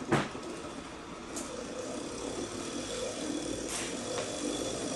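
Experimental electromagnetic synchronous motor speeding up as its controller is turned up, its running noise growing steadily louder. A sharp knock at the very start and a couple of lighter clicks.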